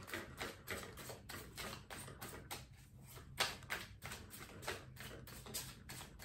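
A deck of tarot cards shuffled by hand, cards flicking and tapping against each other in a quick, uneven run of soft clicks, about three or four a second.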